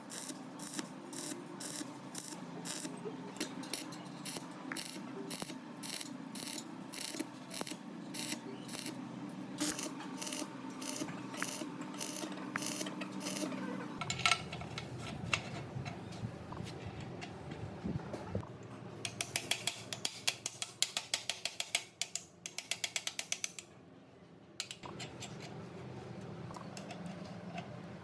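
Repeated mechanical clicking over a steady hum, about two clicks a second. About halfway through the sound changes, and later comes a faster run of clicks that stops suddenly.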